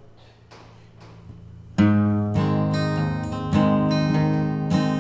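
Acoustic guitar strumming slow, ringing chords as a song's intro. It starts about two seconds in with one strong strum, followed by a few more strums about a second apart.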